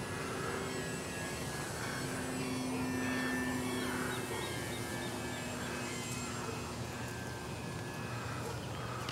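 Electric RC model airplane flying overhead, its NTM Propdrive brushless motor and 11-inch APC propeller giving a steady, distant hum that swells about two to four seconds in and then eases off.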